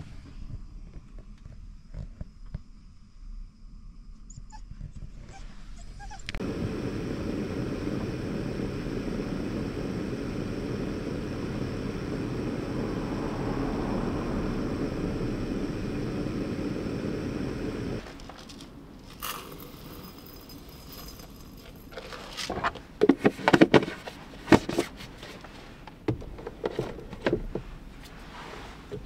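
Steady rushing of a lit gas camp-stove burner heating a kettle, which starts about six seconds in and cuts off sharply about two-thirds of the way through. It is followed by scattered knocks and clatter of things being handled on a wooden table.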